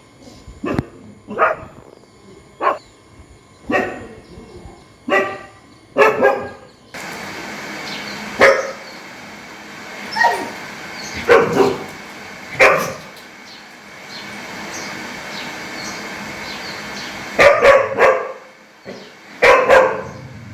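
Angry dog barking loudly in single sharp barks about once a second. About seven seconds in the background changes suddenly to a steady hiss, and the barks come more unevenly, a second or more apart, with quick doubled barks near the end.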